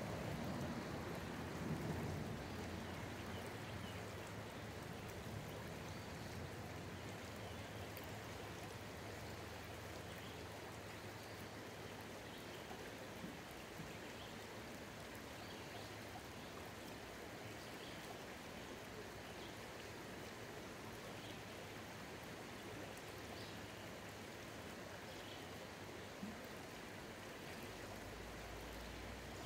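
Shallow river running over stones, a steady rush of water with a low rumble in the first few seconds. Faint bird chirps come through now and then.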